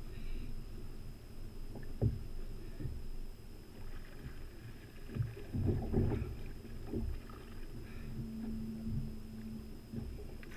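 Water sloshing and slapping against a plastic fishing kayak's hull, with a few knocks. The loudest splashing comes about halfway through, as a hooked striped bass breaks the surface beside the kayak.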